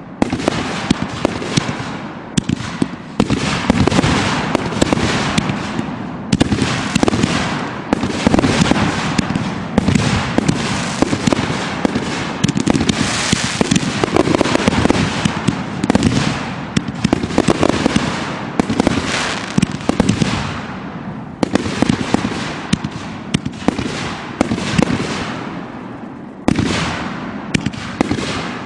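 Aerial fireworks firing in a rapid, unbroken barrage: bang after bang with hardly a gap, easing briefly near the end before picking up again.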